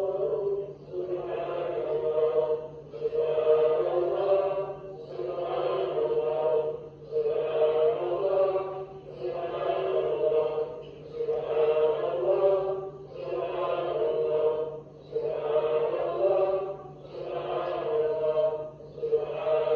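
Sufi dhikr: a group of voices chanting one phrase of the names of God over and over, about one phrase every two seconds, in a steady rhythm. A steady low hum runs under the chanting.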